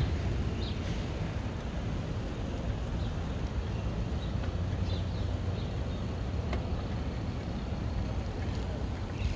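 Steady low rumble of wind buffeting the microphone of a moving camera, with a few faint clicks.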